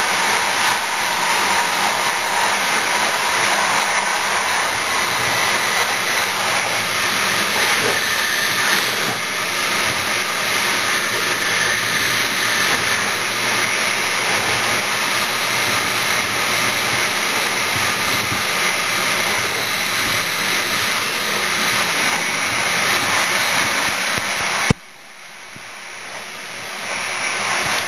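Electric train running at speed on a main line, heard from the front cab: a steady rushing noise of wheels on rails and passing air. About 25 seconds in the noise drops away abruptly, then swells back up over the next few seconds.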